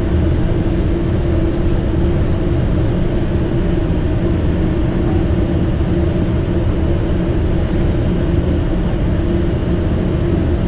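Fishing boat's engines running steadily underway: a constant low drone with a steady hum over it.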